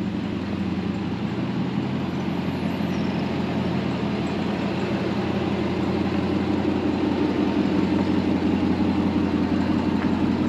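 Off-road vehicle engines running at low revs: a steady engine hum that grows a little louder over the last few seconds as a Ram 1500 TRX pickup crawls closer along the rutted trail.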